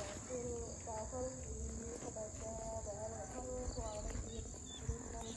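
Steady high-pitched drone of an insect chorus in grassland at dusk. A faint, wavering melodic line with held, bending notes sounds underneath from a distance.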